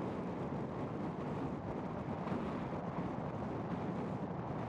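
Wind blowing across the microphone: a steady, rough rush of noise with no tone in it.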